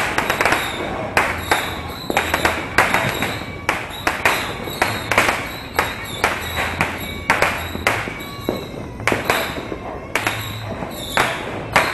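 Firecrackers and fireworks going off all around, a continuous irregular run of sharp bangs, one to three a second, each with a short echoing tail.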